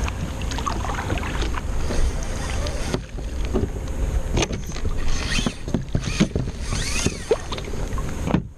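Kayak paddle strokes splashing and water slapping the hull of a fishing kayak, over a steady low rumble of wind on the microphone.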